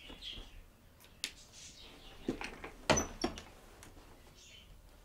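Scattered light clicks and knocks, the loudest about three seconds in.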